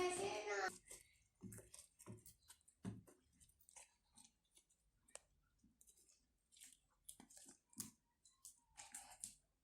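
Faint, irregular sticky clicks and squishes of homemade glue-and-activator slime being kneaded by hand on a table, still not fully set.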